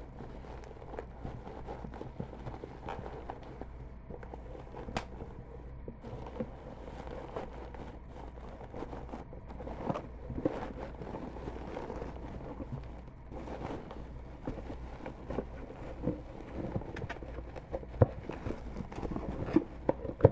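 Hands opening a mailed package: irregular rustling, crinkling and small knocks of the packaging being torn and handled, over a steady low hum.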